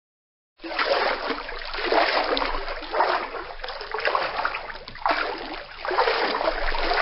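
Water sloshing and splashing in uneven surges, starting abruptly just after half a second in: a water sound effect.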